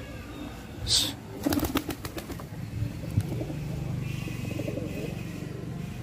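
Fantail pigeons: a quick burst of wing flaps about one and a half seconds in, then a low cooing through the middle of the stretch.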